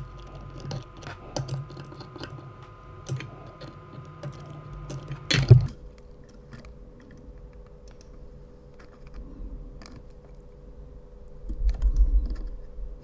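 Small scattered clicks and taps of steel tweezers and a soldering iron tip against a tiny brass threaded insert being heat-set into a 3D-printed plastic gear, over a faint steady hum. A louder knock comes about five seconds in, and a low rumble near the end.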